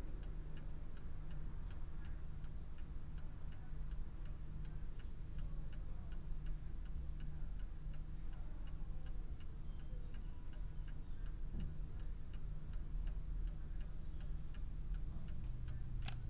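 A clock ticking steadily and evenly over a low, steady room hum. Near the end comes a single sharp click as a portable radio is switched on.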